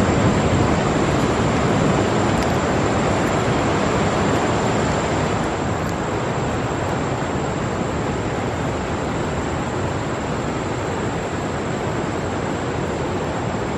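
Steady rushing noise of heavy surf, easing slightly about a third of the way in, with a thin high steady whine above it.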